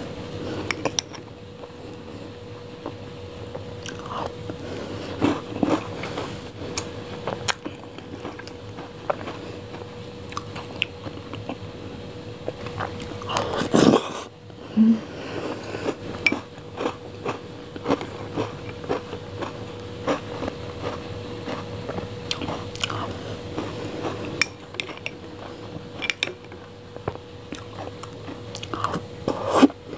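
Close-miked eating of a soft, creamy dessert from a spoon: wet mouth sounds and lip smacks with scattered small clicks, the loudest about halfway through. A faint steady hum runs underneath.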